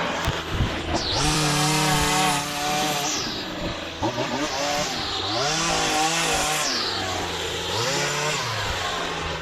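Small gas engine of lawn equipment running at high speed, its pitch sagging and climbing back up a few times, with a hiss over it.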